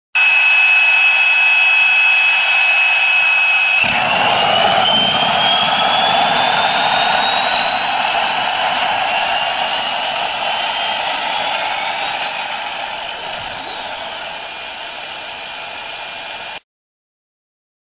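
Small turbine jet engine whining steadily. About four seconds in, a loud roar joins and the whine climbs steadily in pitch for about ten seconds as the engine spools up, then levels off. The sound stops suddenly near the end.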